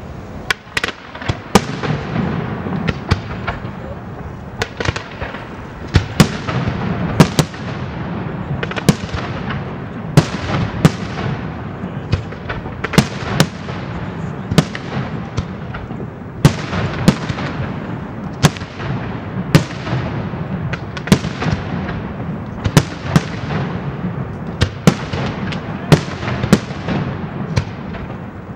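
Aerial fireworks display: a dense, continuous string of sharp bangs from bursting shells, roughly one or two a second, over a steady din.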